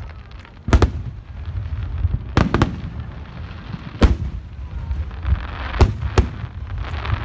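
Aerial fireworks going off in a series of sharp, loud bangs, some in quick doubles and triples. Crackling comes between them about five seconds in and again near the end, over a steady low rumble.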